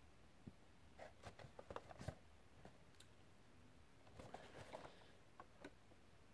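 Near silence with faint scattered clicks and light rustling, in a cluster about a second in and another around four seconds in: a boxed Funko Pop figure being handled.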